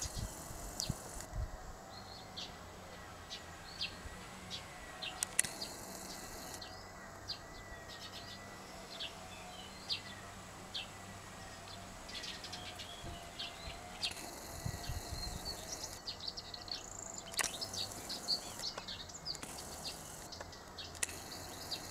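Small birds chirping on and off, short high calls scattered throughout over a faint steady background.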